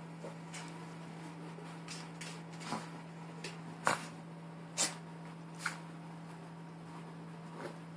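A wet Maltese rolling, squirming and rubbing himself on a towel on a hardwood floor: scattered short rustles and thumps of body, paws and claws against the towel and floor, the loudest about four and five seconds in.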